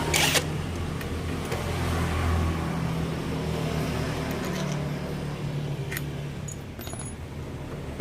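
A steady low mechanical drone, like a motor running, with a few short metallic clicks.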